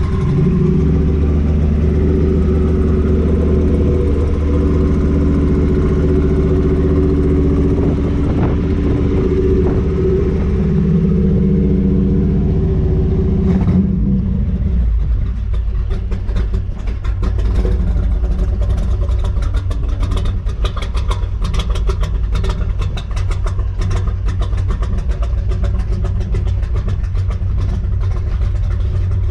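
A 427 cubic-inch V8 marine engine runs through dual 4-inch exhausts in a custom truck. The sound is loud and steady at first. About halfway through it changes to a choppier, pulsing idle.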